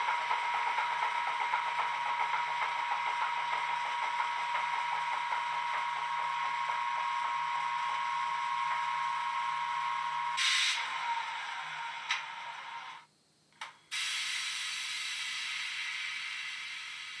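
A model British Rail Class 25 diesel's DCC sound decoder playing through two EM1 speaker drivers: the diesel engine sound idles steadily. About ten seconds in there is a sudden burst and the engine note falls away as it shuts down. A short near-silent gap with a click follows, then a steady hiss.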